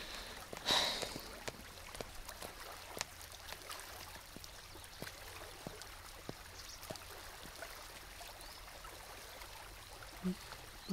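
Quiet, faint hiss with scattered soft clicks and a short breathy sniff about a second in, from people crying quietly.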